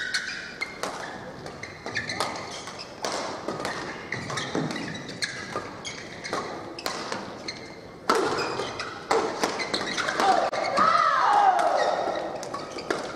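Badminton doubles play on an indoor court: scattered sharp taps and thuds, then from about eight seconds in a busier run of racket hits on the shuttlecock and footwork thuds, with sliding squeaks from shoes on the court floor.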